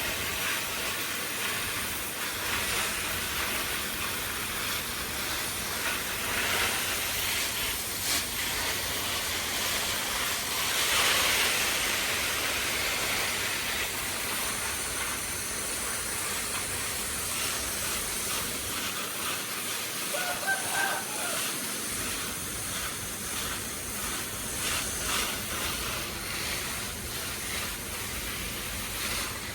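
Steady hissing noise, with a short high chirp about twenty seconds in.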